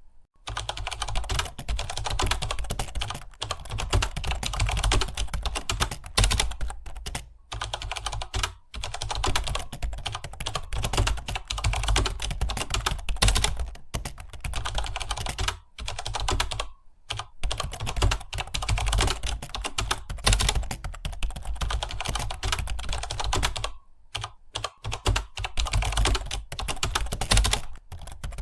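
Computer keyboard typing: fast continuous keystrokes, broken by a few brief pauses.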